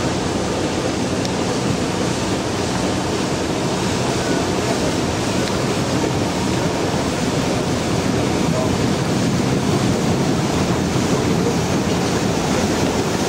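Steady hubbub of a crowd of spectators chatting, under a rushing noise of wind on the microphone.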